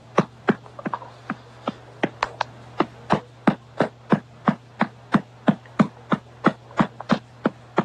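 A hand patting rhythmically and evenly, about three pats a second, as when patting a baby's back after a feed. A steady low hum runs underneath.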